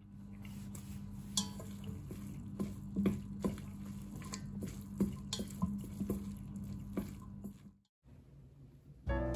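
Wooden chopsticks tossing cooked spaghetti with butter in a stainless steel pot: wet noodle sounds and irregular clicks of the chopsticks against the metal, over a steady low hum. The sound cuts out near the end and music begins.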